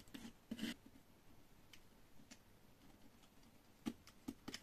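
Near silence with a few faint, irregular light clicks of a knife blade against an ash block as PVA glue is worked into a crack in the wood.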